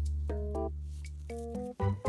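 Background music: keyboard chords over a held bass note.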